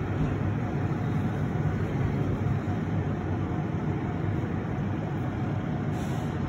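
Steady low rumble of vehicle engines running, with no change or break.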